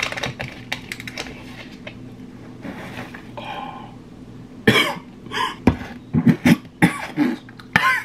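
Clicks and a short scraping tear as the plastic lid and seal of a powder tub are worked open, then a person coughing hard several times over the last few seconds.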